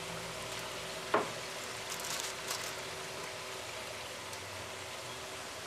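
Kitchen handling of fried rabbit pieces and a sauce bottle over a foil pan, against a steady hiss. There is one sharp knock about a second in and a few light clicks a second later.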